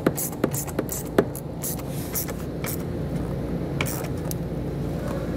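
A 10 mm socket on an extension tightening a nut down onto a car battery's terminal stud over ring terminals: a few short metallic clicks and taps, most in the first second and a half, over a steady low hum.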